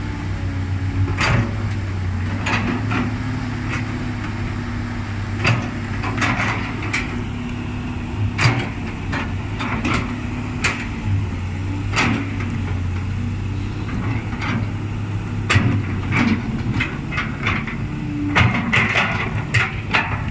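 Kobelco SK200 excavator's diesel engine running steadily as it digs and loads soil into a ten-wheel dump truck, with frequent sharp knocks and clanks, thickest near the end.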